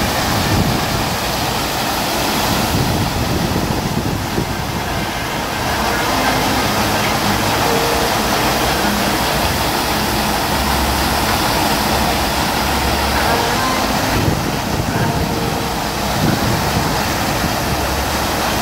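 FlowRider surf simulator running: the steady, loud rush of its pumped sheet of water pouring up the ramp, hissing as a bodyboarder cuts through it.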